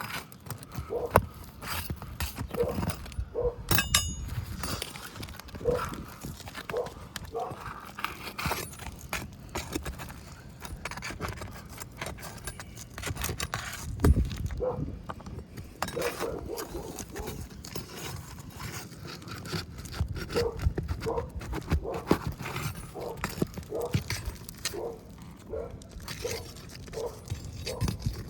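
Metal roofing tools (pry bar and roofing snake) scraping, clicking and knocking against shingles and roofing nails as the nails are worked loose to separate a shingle, with a few sharper knocks.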